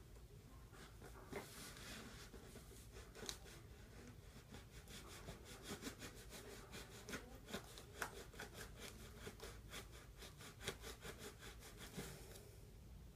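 Faint rubbing and scraping of toy packaging being worked open by hand. About halfway in, a run of quick, irregular clicks sets in, a few a second, then stops shortly before the end.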